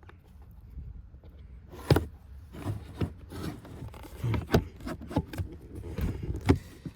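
Cabin filter and plastic filter-housing parts being worked into place by hand: irregular rubbing and scraping with a series of clicks and knocks, the sharpest about two seconds in and near the end.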